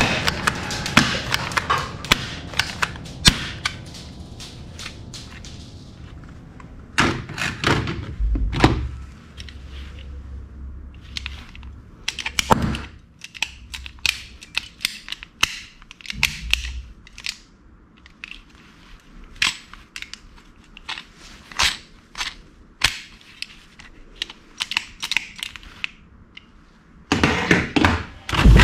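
Plastic and metal toy guns clacking and knocking as they are handled and set back into a plastic storage box, with a long run of light sharp clicks in the middle and a few louder knocks.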